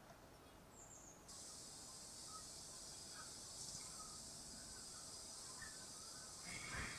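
Faint playback of a field recording made at a steam railway station: a steady high-pitched hiss comes in suddenly about a second in, with a few faint chirps over it, and fuller sound starts near the end.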